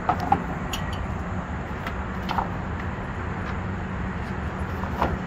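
Steady low engine hum of a vehicle running, with a few short plastic knocks and clacks as corner protectors are handled and set against the load; the sharpest knock comes just after the start.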